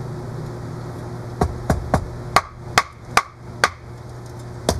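Hatchet splitting a hardwood stick on a chopping block: a run of about eight sharp wooden knocks, starting about a second and a half in and coming unevenly, two or three a second.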